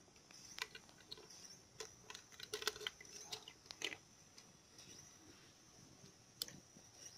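Faint scattered taps and clicks of an egg and small kitchen items being handled over a blender jar, with one sharper tap about six and a half seconds in.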